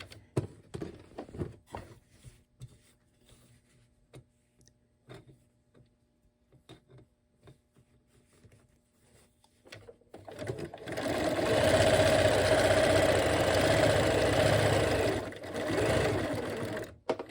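Bernina 1130 sewing machine with a few light clicks at first, then running steadily for about six seconds as it sews a decorative stitch, with a brief slowdown before it stops near the end.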